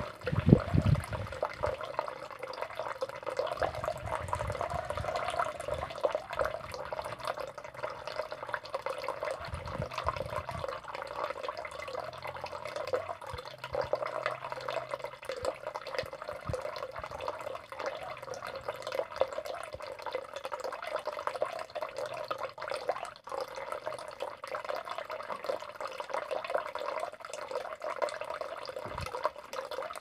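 Steady trickling and splashing water with dripping. There is a low thump about half a second in and intermittent low rumbling.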